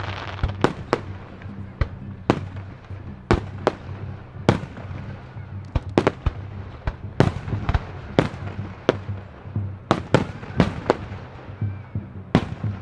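Fireworks display: aerial shells launching and bursting in a rapid, uneven string of sharp bangs, about two a second, with crackle between them.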